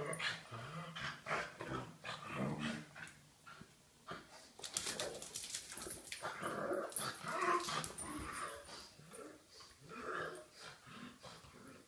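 A Samoyed puppy and a pug playing, with a string of short growls and barks and claws clicking on the tile floor.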